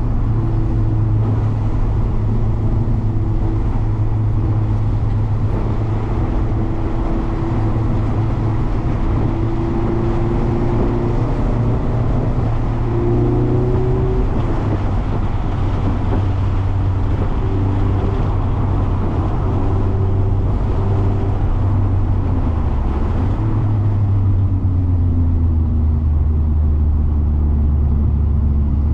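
Mazda MX-5 ND's four-cylinder engine running under load on a wet circuit, its pitch climbing and dropping through acceleration and gear changes, over a steady wash of road and wind noise.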